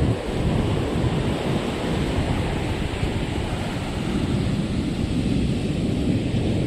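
Steady rumble of wind on the microphone over the wash of surf.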